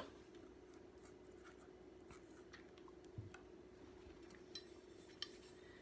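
Faint rubbing and light scratching of an oiled cloth patch wiped along a steel shotgun barrel, with a few small ticks and one soft knock about three seconds in.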